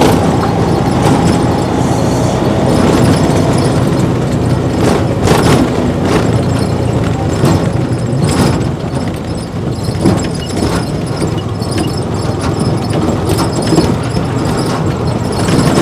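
Steady engine and road noise of a vehicle in motion, heard by someone riding it, with scattered knocks and rattles.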